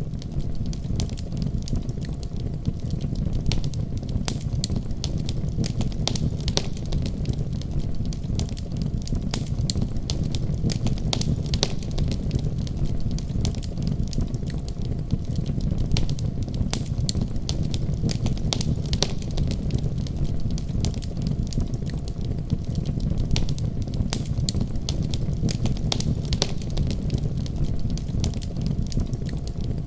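Firewood burning in a wood-burning stove: a steady low rush of the fire, with frequent sharp, irregular crackles and pops from the burning logs.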